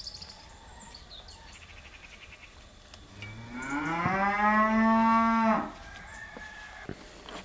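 A cow mooing once: one long call of about two and a half seconds that rises in pitch and then holds steady, starting about three seconds in.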